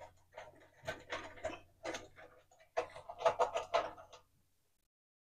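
Irregular clicks and light metallic scraping from hands working loose the terminal nut on a room heater's heating-rod connection, in a run of short clusters.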